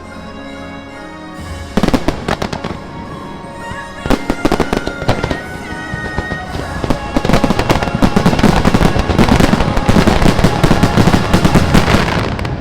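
Fireworks finale over show music: a few separate bursts, then a dense, loud barrage of rapid bursts building through the second half.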